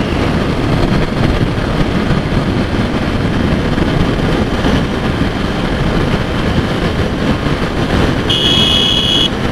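Bajaj V15's single-cylinder engine running hard in fifth gear at about 90 km/h, under heavy wind rush on the helmet microphone. About eight seconds in, a high-pitched beep sounds for about a second.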